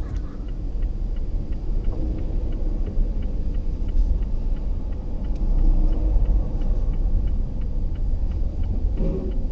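Wind buffeting the microphone: a loud, unsteady low rumble, with faint even ticks about twice a second behind it.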